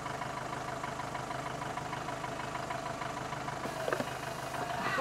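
A vehicle engine idling with a steady hum. A few light knocks come about four seconds in, and a clunk near the end.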